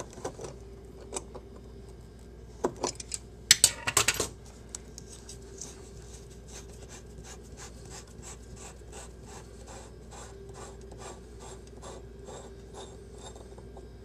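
Threaded chrome cap of a Delta single-handle ball faucet being unscrewed by hand. A few sharp clicks and knocks come about three to four seconds in, then a steady run of quick scraping ticks, about three a second, as the metal threads turn.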